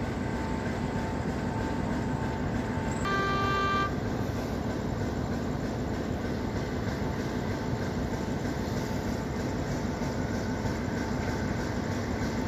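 Horn of an approaching railcar, one short toot about three seconds in, over a steady background noise.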